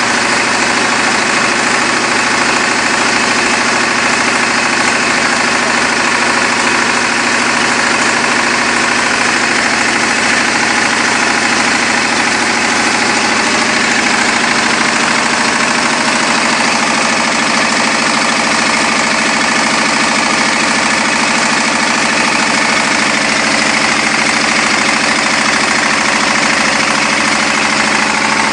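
Small diesel engine of a portable generator set running steadily at a constant speed, with a fast, even beat of firing pulses.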